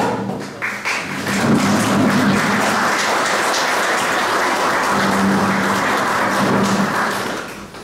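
Audience applauding, building about a second in and dying away near the end.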